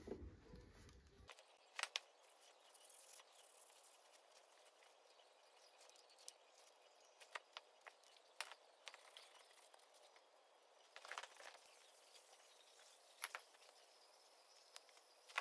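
Near silence with a few faint, sharp clicks and knocks scattered a few seconds apart.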